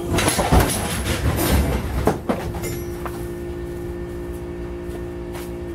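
Metal being struck hard and repeatedly with a swung tool, a clatter of clanking blows, then the struck metal left ringing with a steady tone that cuts off suddenly.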